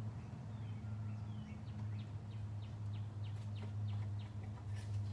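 A steady low hum, with a quick run of short high chirps, about three or four a second, in the middle and a few sharp clicks near the end.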